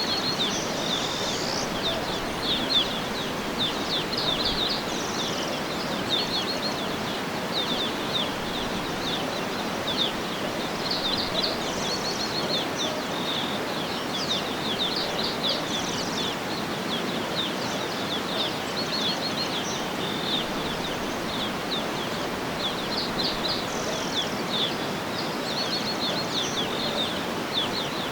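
Outdoor nature ambience: many small birds chirping and trilling over a steady rushing background hiss.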